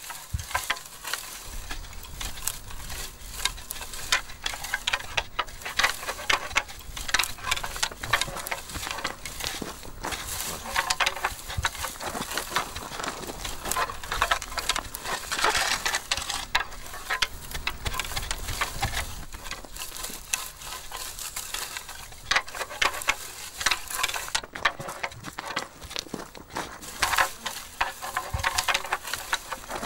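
Two red deer stags fighting in the rut, their locked antlers clacking and scraping while the dry scrub crackles under them. There are many irregular sharp clicks and rustles, busiest around the middle and near the end.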